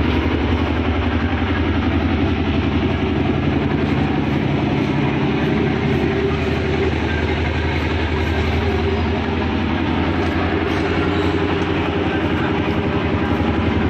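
Diesel bus engine idling with a steady low hum, heard from inside the coach's cabin.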